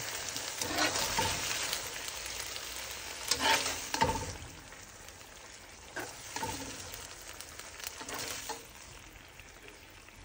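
Chicken pieces and cooking fat sizzling in a stone-coated nonstick skillet while a slotted metal spatula scrapes the pan and scoops the pieces out, with several short scrapes and knocks. The sizzle weakens after about four seconds.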